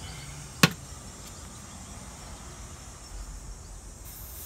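A sharp click about half a second in; then, just before the end, R-410A refrigerant starts hissing out under pressure at the mini-split's service port as the charging hose is unscrewed.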